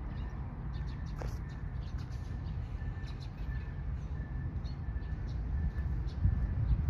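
Wind buffeting a phone's microphone: a low rumble that grows stronger near the end. Above it are faint high chirps and ticks, and one falling call about a second in.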